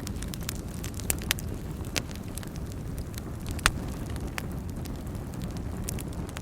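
Wood fire burning in a fireplace: a steady low rumble of flames with scattered sharp crackles and pops, one louder pop a little after halfway.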